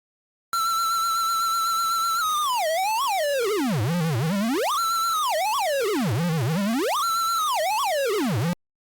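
Synthesized buzzy tone from a data sonification of the United States' border outline, its pitch following the traced coordinates. It holds a steady high note for about two seconds, then swoops down to a low growl and back up twice, swoops down once more and cuts off abruptly.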